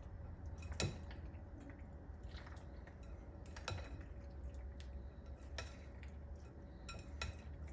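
Silicone spatula tossing creamy macaroni salad in a glass mixing bowl: soft, faint stirring of the dressed pasta, with scattered light taps and clicks of the spatula against the glass.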